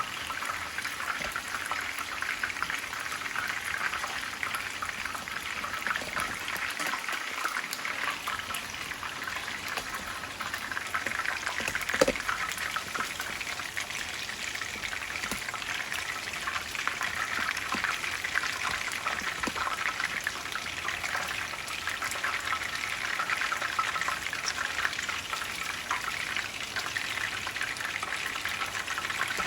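Chicken pieces frying in hot oil in a pan: a steady, dense crackling sizzle. A single sharp knock comes about twelve seconds in.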